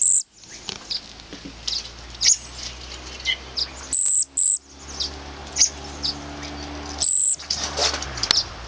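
Birds chirping, with short, scattered chirps and a few very high, thin calls that come in brief runs.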